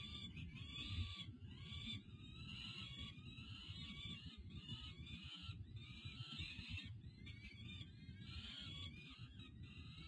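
Peregrine falcon chicks giving food-begging calls while the adult feeds them, calls following one another every half second or so over a steady low rumble.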